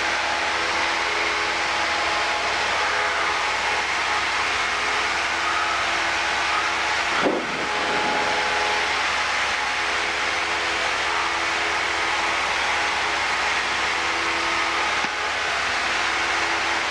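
Cessna 172's piston engine and propeller droning steadily at climb power just after takeoff, heard inside the cabin with loud rushing air noise. A brief bump disturbs the drone about halfway through.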